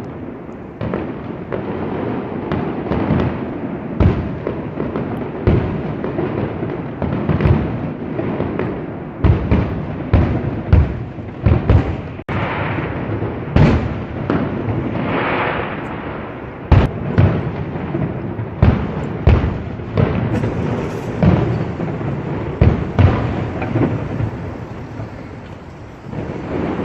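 A fireworks display: many sharp bangs at irregular intervals, sometimes several within a second, over a continuous rumble and crackle of further bursts.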